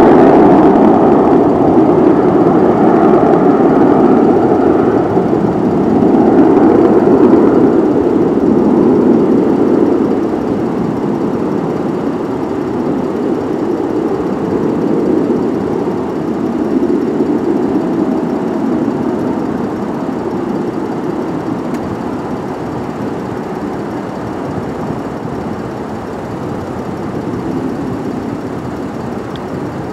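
Boeing 737-700's twin CFM56-7B turbofans at takeoff thrust: a steady jet roar, loudest at first, that fades gradually through the second half as the airliner accelerates away down the runway.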